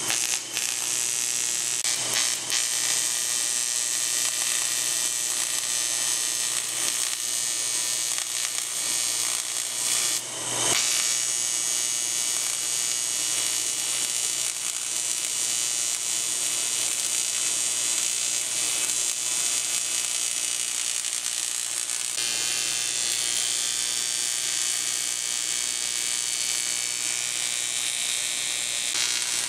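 AC TIG welding arc buzzing steadily while welding aluminum railing parts. It breaks off briefly about ten seconds in, then starts again.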